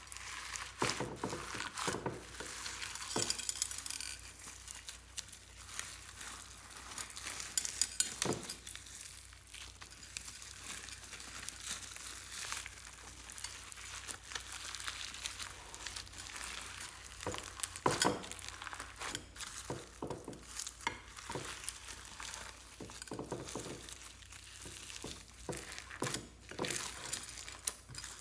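Clear slime being mixed, with sticky crackling and popping and a few louder clicks.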